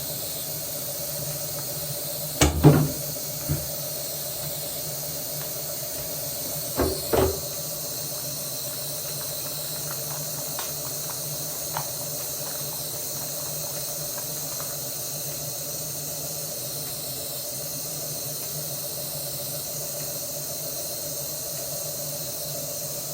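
Shower water running in a steady hiss, with a faint steady hum underneath. Two short louder sounds break in, about two and a half seconds in and again about seven seconds in.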